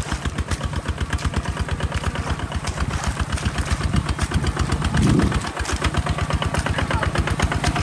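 Kubota ZT155 DI single-cylinder diesel on a walk-behind hand tractor, chugging steadily in a fast even beat while the tractor works through deep paddy mud. There is a brief louder burst about five seconds in.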